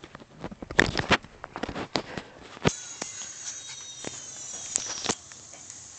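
A close run of knocks, clicks and scrapes from the handheld camera being jostled, with a Pomeranian puppy right at the lens. It is followed by about two seconds of steady hiss with a faint high whine, which cuts off suddenly.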